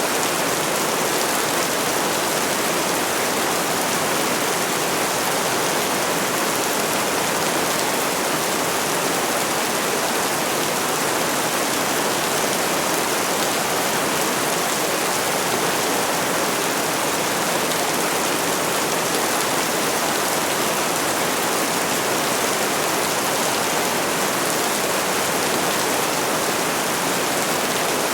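Steady rain falling, an even, unbroken hiss with no thunder or separate drops standing out.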